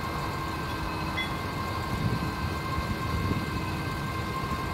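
Propane-fuelled Hyundai forklift engine idling steadily: a low rumble with a steady high tone over it.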